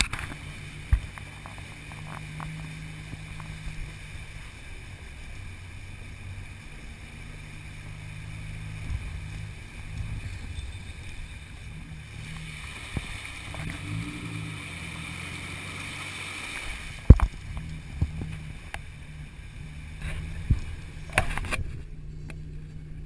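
A pickup truck's engine runs at low speed while its tyres push through deep muddy water, with the wash and splash of water along the body. A few sharp knocks break in, the loudest about two-thirds of the way through.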